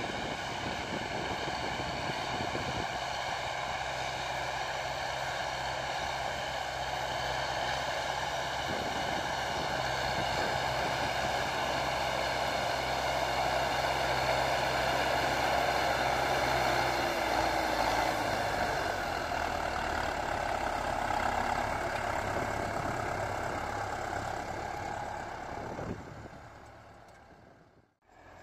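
Steady machine running noise: a low engine hum under a high whine. It grows slightly louder towards the middle, then fades out near the end.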